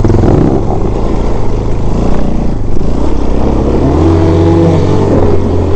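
Enduro motorcycle engine running at close range and being revved, its pitch climbing about three and a half seconds in and dropping again near the end.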